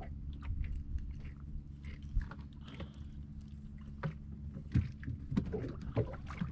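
Small fishing boat's engine idling steadily with a low hum, with scattered knocks and clicks over it, more of them in the last couple of seconds.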